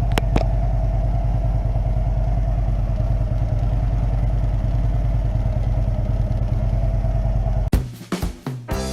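Harley-Davidson Street Glide's Milwaukee-Eight V-twin idling steadily just after being started to check the work of a fresh oil change. The engine stops abruptly near the end.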